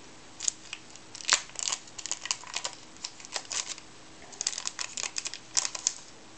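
Screen protector's plastic packaging crinkling and clicking as it is handled, in clusters of short sharp crackles, loudest about a second in.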